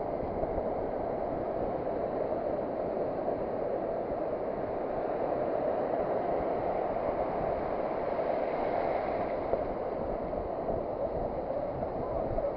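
Ocean surf on a beach, a steady rushing wash that goes on without a break.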